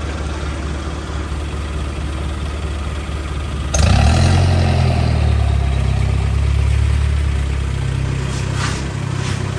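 Isuzu pickup truck's engine running steadily as it drives slowly, then revved up with a sudden louder surge and a brief hiss about four seconds in, holding at a higher pitch before easing back.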